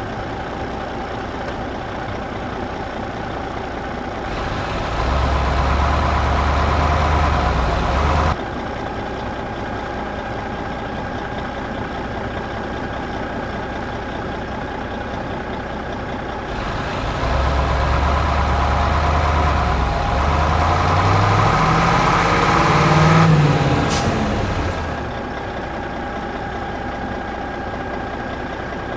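Engine sound like a truck or tractor over a steady background hum. It swells louder twice, and the second time it rises and falls in pitch near the end.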